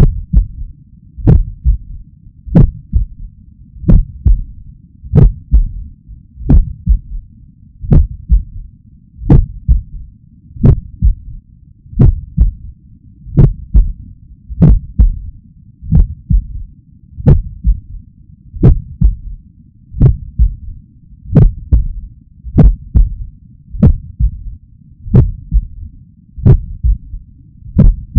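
A human heart heard through a stethoscope, beating slowly and evenly at about 45 beats a minute over a steady low rumble. Each beat is a cluster of thumps, with a third heart sound (S3) gallop following the second sound. An S3 is usually linked with heart failure but can be normal in people under 40 and in trained athletes, and the uploader hopes that is the cause here.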